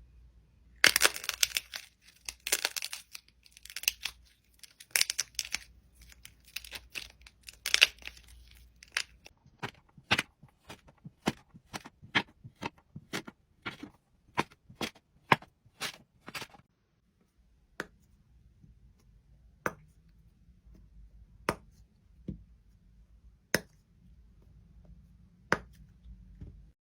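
Crisp crunching and tearing of something brittle for the first several seconds, then a series of sharp single cracks that come further and further apart.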